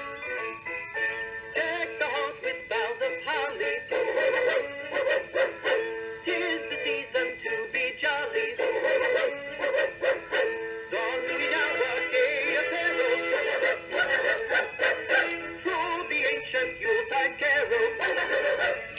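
Gemmy Christmas Dog Trio animatronic playing its Christmas song: continuous music with a synthetic-sounding sung tune.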